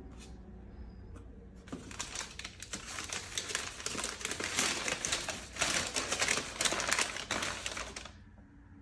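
Crumpled brown kraft packing paper crinkling and crackling as it is handled and unfolded. The crackle starts about two seconds in and stops abruptly shortly before the end.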